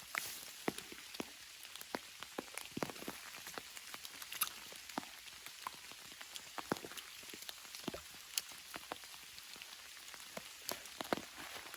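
Rain falling steadily, with many large single drops tapping irregularly on a surface close by, several each second.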